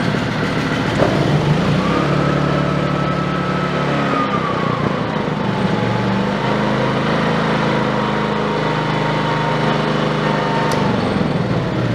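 Small engine of an AAVIX 3000-watt inverter generator running after a pull-cord start. Its whine drops in pitch about halfway through as the engine speed settles lower.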